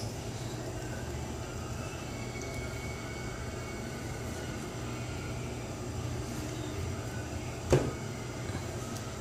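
A steady low hum, with one sharp tap about three-quarters of the way through.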